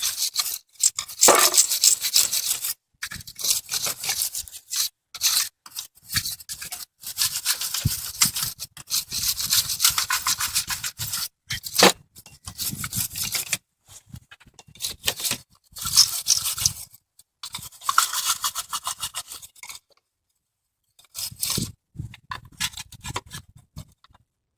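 Wire brush scrubbing heavily corroded battery cable terminals: quick rasping back-and-forth strokes in spells of a second or two with short pauses, stopping shortly before the end after one last brief spell.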